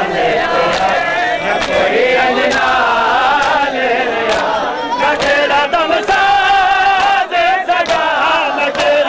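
A group of men chanting a noha, a mourning lament, in unison. Sharp slaps of chest-beating (matam) come about once a second.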